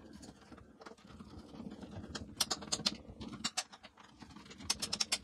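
Hand screwdriver driving in a screw, giving runs of small sharp clicks that come thicker in the second half.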